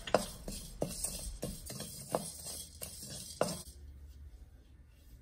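A wooden spatula scrapes and taps against a metal kadai as cumin seeds and black peppercorns are stirred in dry-roasting, with the seeds rattling across the pan. There are about nine irregular strokes, and they stop about three and a half seconds in.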